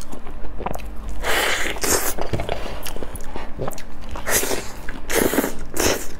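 Wet mouth sounds of biting into and eating soft, creamy durian flesh, coming in several short bursts.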